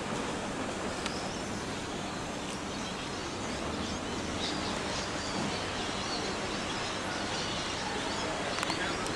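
Steady hiss of the air and room noise in a large, nearly empty airport check-in hall, with a few faint clicks; it cuts off abruptly at the end.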